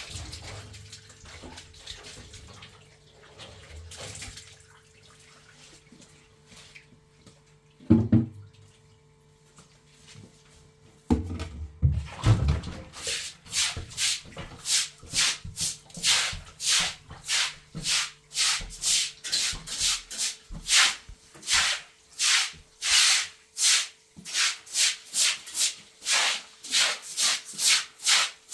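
A thump about eight seconds in, then from about halfway a steady run of rasping strokes, about two a second, from a hand tool worked back and forth on wood, as in hand-sawing or rasping.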